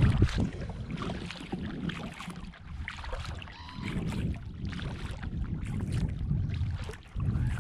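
Water splashing and dripping from kayak paddle strokes, with wind rumbling on the microphone.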